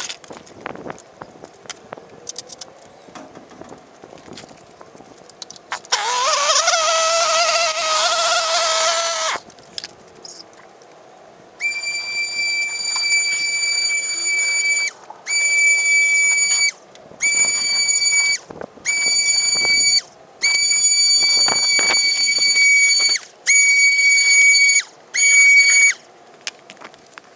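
Handheld garden power tool running: a rushing run for a few seconds that rises in pitch, then a steady high-pitched whine switched on and off in about seven bursts.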